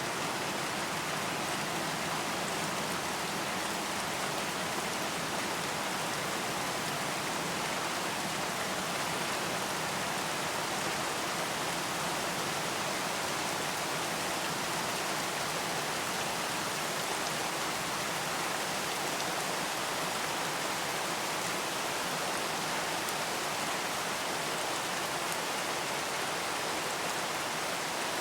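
Steady rain falling, an even hiss with no thunder and no single drops standing out.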